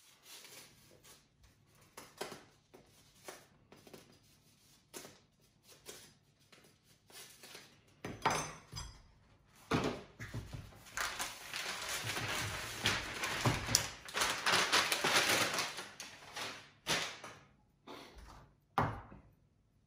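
Wrapping being torn off rolls of backgammon checkers: light taps and clicks of handling, then a long spell of loud crinkling and rustling from about eight to sixteen seconds in, ending in a few sharp knocks as the rolls are set down on the board.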